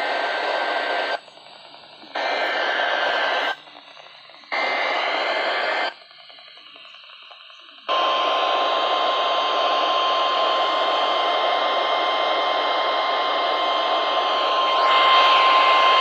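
NOAA Weather Radio emergency alert through a Midland weather radio's speaker: three short buzzing bursts of the SAME digital alert header, each about a second long with static hiss between them, then about eight seconds in the steady single-pitch warning alarm tone, which holds and grows a little louder near the end. This is the lead-in to a tornado warning broadcast.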